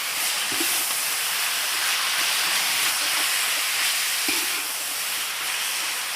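Sliced onions sizzling in hot oil in a pan, a steady hiss, with a couple of faint knocks.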